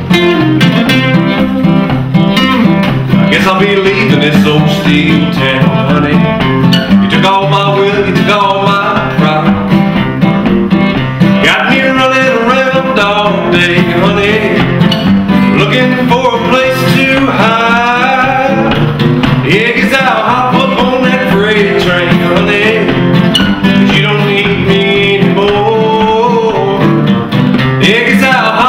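Two acoustic guitars, one a Yamaha, playing a country-blues song together, with a man singing lead over them.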